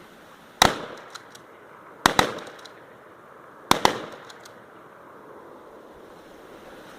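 Shotgun shots fired at thrown clay targets: a single shot about half a second in, then two quick pairs of shots around two and nearly four seconds in, each bang briefly ringing out.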